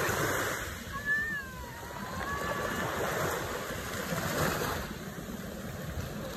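Small waves breaking and washing up on a sandy shore in swells every second or two. About a second in, a short high call glides down and back up.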